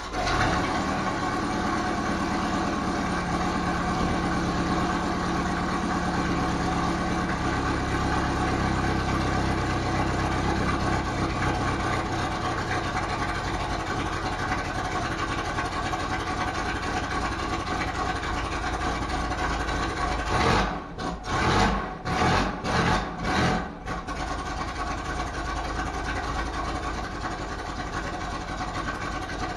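1964 Volkswagen Beetle engine running steadily just after it has been fuelled. About twenty seconds in it dips and picks up again several times in a few seconds, then settles back into a steady run.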